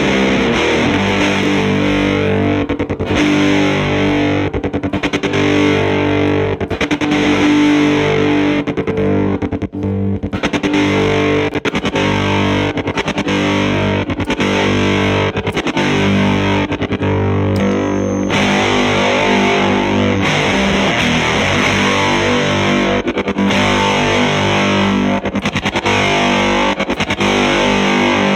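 Electric guitar played through a fuzz circuit built into a telephone handset, into a valve amp: heavily fuzzed, low-tuned riffing. The tone keeps chopping in and out rapidly, a sound the player likens to a helicopter.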